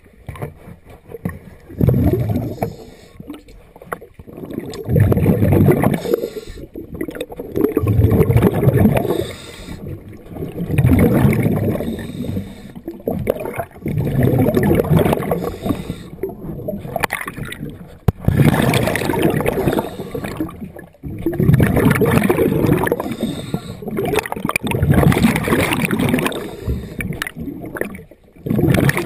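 Scuba diver breathing underwater through a regulator: exhaled bubbles gurgle in swells about every three seconds.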